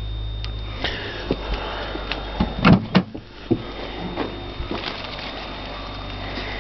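Clicks and clunks of a Holden VS Commodore's car door being handled, with two loud knocks close together about three seconds in.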